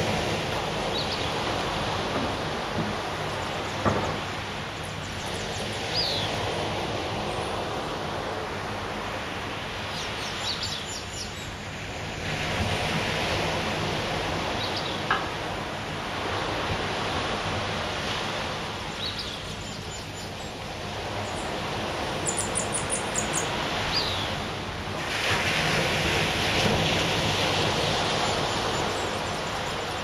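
Surf washing onto a sandy beach, swelling louder and easing off every several seconds. A bird gives short, high, falling chirps every few seconds, and a quick run of high ticks comes a little after the middle.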